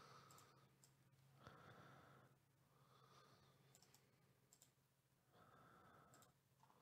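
Near silence: faint room tone with a low hum and a few faint clicks.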